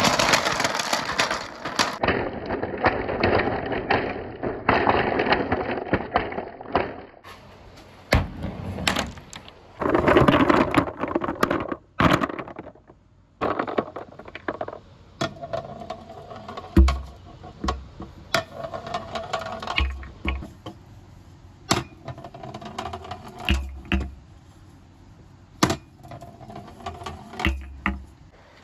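Marbles rolling along a marble-run track: a steady rolling rumble at first, then scattered clicks and clacks of balls hitting the track with short low thumps.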